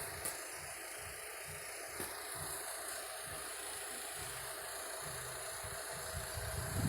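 Fiat Uno Vivace 1.0 8-valve four-cylinder engine idling steadily, with a few low thumps near the end.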